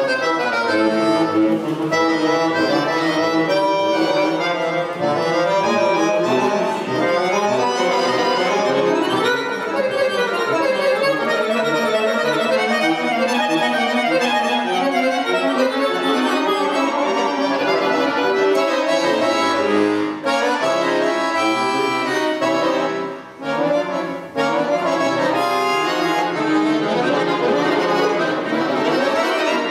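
Bayan, a Russian chromatic button accordion, played solo: a continuous, busy passage of many notes, with a brief drop in loudness a little past the middle.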